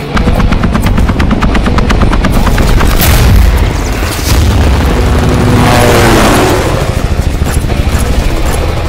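Film action soundtrack: rapid automatic gunfire, about ten shots a second for two seconds or so, then a loud explosion boom, over a music score. Later a falling sweep in pitch and a quick pulsing rhythm follow.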